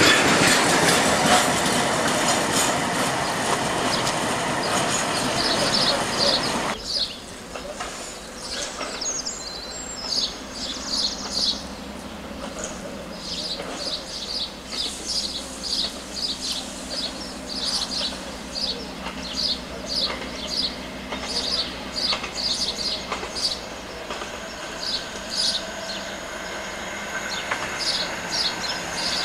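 Freight wagons rolling past close by with a heavy clatter over jointed rail, which cuts off abruptly about seven seconds in. Then comes a quieter scene: the low, steady drone of an approaching diesel locomotive, with short high chirps repeating about once a second over it.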